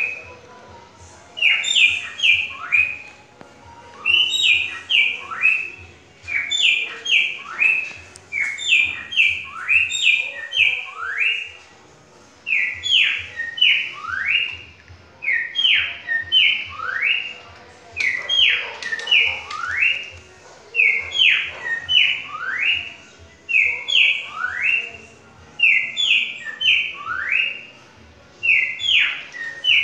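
Cockatiel imitating the song of a green-winged saltator (trinca-ferro): short whistled phrases of three to five quick slurred notes, repeated about every two seconds.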